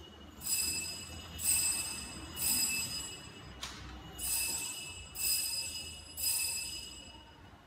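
Altar bells rung at the elevation of the consecrated host: two sets of three rings about a second apart, each ring dying away, with a single sharp click between the sets.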